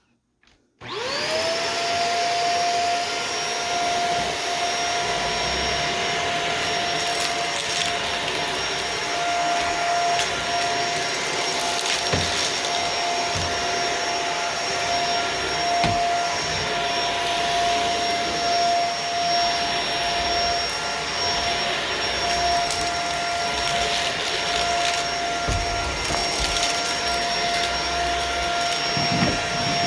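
Vacuum cleaner switching on about a second in, its motor whine rising and settling to a steady running tone, with scattered crackles of dirt and debris being sucked up.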